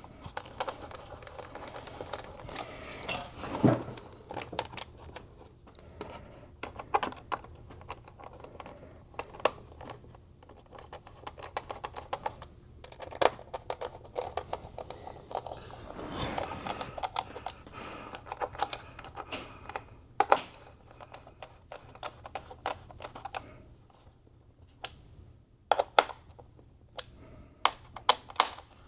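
Irregular small clicks and taps of hands handling and fitting small computer parts and tools during reassembly of an iMac, with a low steady hum underneath.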